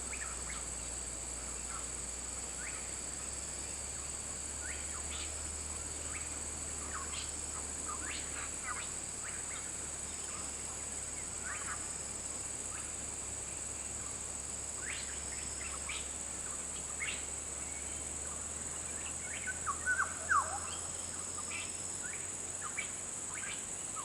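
Birds giving short, sharp chirps scattered irregularly, a few louder ones near the end, over a steady high-pitched hiss.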